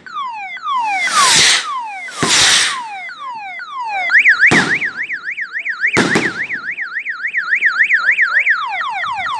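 Electronic vehicle siren cycling through its tones: a quickly repeated falling sweep, then a fast up-and-down warble of about three cycles a second from about four seconds in, then falling sweeps again near the end. Four sharp bangs break across it.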